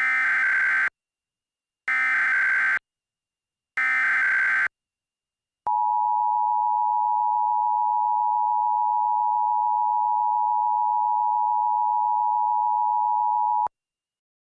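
Emergency Alert System SAME header: three short bursts of warbling digital data tones about two seconds apart, followed by the two-tone EAS attention signal (853 and 960 Hz) held steady for about eight seconds before cutting off. It marks the start of a new emergency alert.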